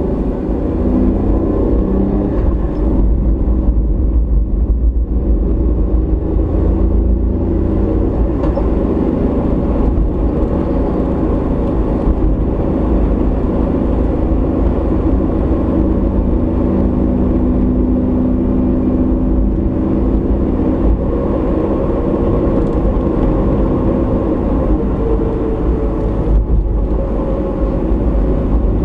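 A car being driven on the road, picked up by a dashboard camera inside the cabin: a steady low rumble of engine and tyres with a droning hum whose pitch drifts slightly.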